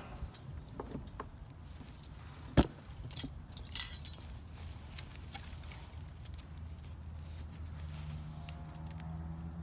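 Small metal clinks and clicks of a refrigerant filter drier and fittings being handled by hand, with one sharp knock about two and a half seconds in, over a steady low hum.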